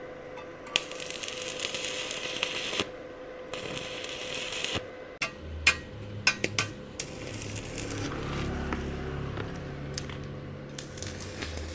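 Stick-welding arc from a K-MAX 250A mini inverter welder, crackling and hissing in several runs of a second or more. Between about five and seven seconds in, a handful of sharp clicks come where the electrode is struck or tapped, and a faint steady tone sounds throughout.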